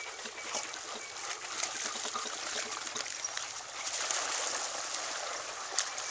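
Water splashing and sloshing as a pack of dogs wades along the shallow edge of a pond, over a steady outdoor hiss.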